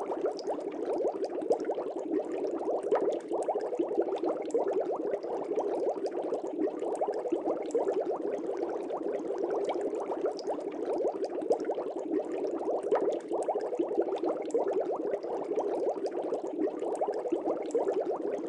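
Water bubbling steadily, a dense, unbroken stream of small bubble pops, as in a bubbling aquarium.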